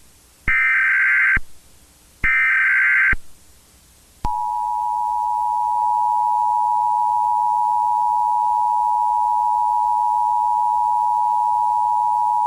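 Emergency Alert System signal: the last two of three SAME header data bursts, each a short raspy electronic screech under a second long. About a second later comes the EAS two-tone attention signal, a steady two-pitch tone that starts just over four seconds in and holds unchanged.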